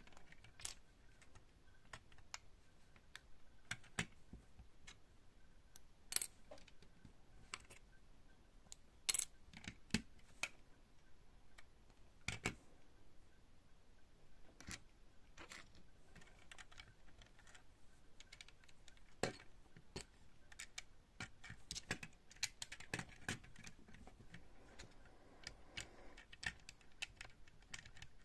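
LEGO bricks being handled and snapped together: irregular small plastic clicks and taps, a few of them sharper and louder.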